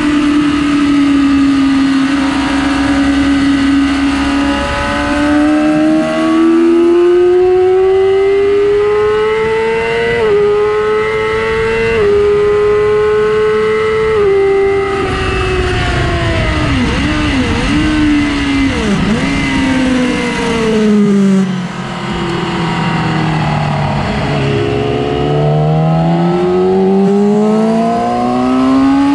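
2006 Yamaha R6's 600 cc inline-four engine running hard at high revs on a race track. The note climbs and holds high, then drops fast with several quick blips of downshifting about 15 to 20 seconds in, sits low for a few seconds and climbs again near the end.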